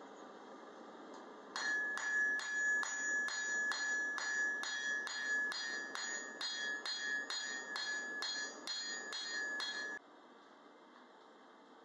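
Ball-peen hammer striking a red-hot 5/16-inch square steel bar on an anvil, about two to three blows a second, each blow ringing with a clear bell-like tone. The hammering starts about a second and a half in and stops suddenly near the end.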